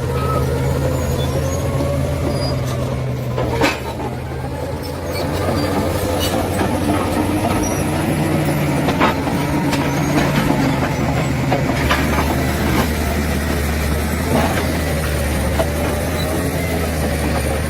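Bulldozer's diesel engine running steadily, with its low pitch shifting a few times and scattered sharp clanks.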